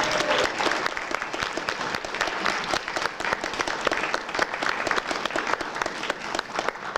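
Audience applauding, a dense spread of many hands clapping that tapers off near the end.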